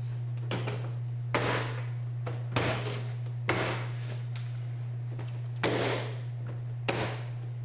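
Hand striking a car's interior door panel to snap its plastic retaining clips into the door. About six sharp knocks, unevenly spaced about a second apart.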